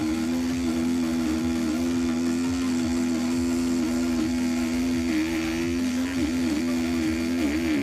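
A small electric motor, the kind that drives a homemade scroll saw, running at a steady speed with an even hum.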